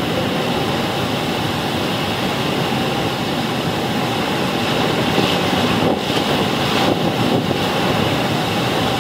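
A motorboat's engine running steadily, mixed with the constant rush of fast river rapids and waterfalls.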